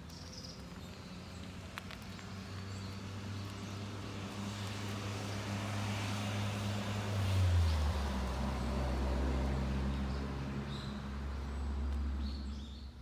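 A motor vehicle driving past. Its low engine hum and tyre hiss swell to a peak about halfway through, where the engine note drops in pitch, then fade away near the end.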